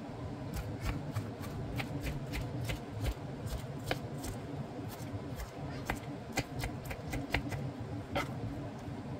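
Kitchen knife dicing cucumber on a wooden cutting board: quick, uneven taps of the blade striking the board, about three a second.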